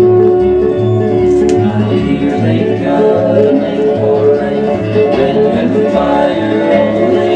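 Music from a record playing through a late-1950s Magnavox console phonograph's tube amplifier and built-in speaker, with sustained instrument tones over a steady bass beat.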